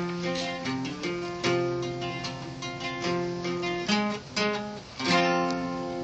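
Two acoustic guitars playing together, picking a melody over strummed chords. About five seconds in a chord is struck and left to ring out.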